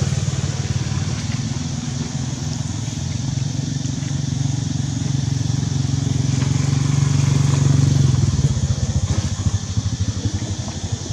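A low engine hum with a rapid pulsing beat, steady and slowly getting louder, then turning uneven and choppy about eight seconds in.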